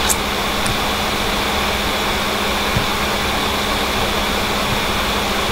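Steady hissing background noise with a constant low hum, like a fan running near the microphone, with a couple of faint clicks.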